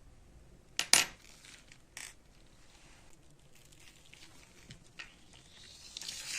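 Sharp metallic clinks of small metal parts being handled: two close together about a second in, another a second later, and a fainter one near five seconds, followed by a short rising rustle at the end.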